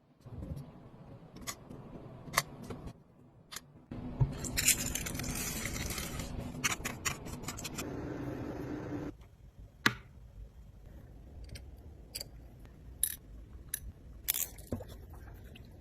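Small metal tools clicking and scraping on a wristwatch being taken apart and restored. A steady hiss runs for about five seconds from around four seconds in.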